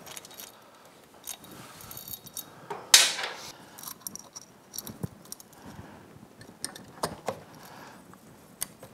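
Cam chain clinking and rattling against metal as it is fished up through the chain tunnel of a new big bore cylinder, with scattered sharp metallic clicks, the loudest about three seconds in.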